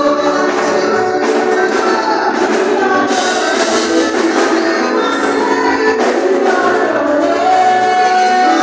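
A church congregation singing a gospel praise song together with instrumental accompaniment, many voices at once and no break.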